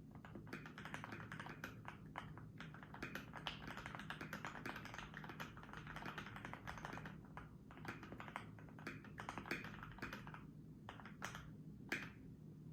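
Typing on a Keychron Q1 V1 mechanical keyboard with lubed, filmed Gateron Yellow linear switches, PBT keycaps and a polyfill-dampened case: a fast, even run of keystrokes. Near the end it thins to a few separate key presses, one of them louder.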